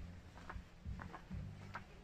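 Footsteps of someone walking across grass, soft ticks about twice a second, over a low rumble on the microphone.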